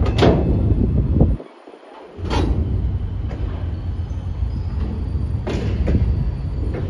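Freight gondola wagons rolling past: a steady low rumble of wheels on rail with a few sharp metallic clacks. The rumble drops away for under a second about a second and a half in.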